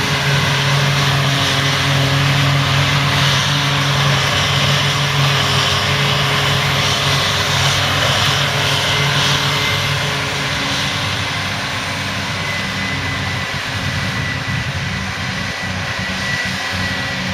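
Heavy farm machinery working silage: a diesel engine running at a steady drone with a thin high whine over it. It is louder for the first half, then eases slightly.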